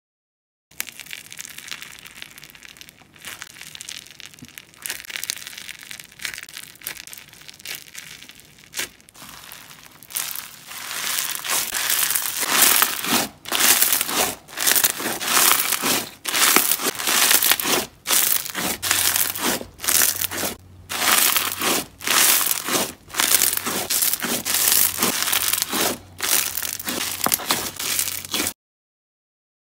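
Crunchy, crusty slime squeezed and pressed between the hands, crackling and crunching. It is faint at first and grows louder from about ten seconds in, coming in quick squeezes with short breaks between them. It cuts off suddenly near the end.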